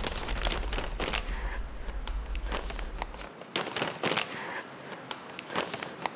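A sheet of paper crinkling and rustling in short crackles as a folded letter is opened out and handled. A low drone under the first half cuts off about halfway.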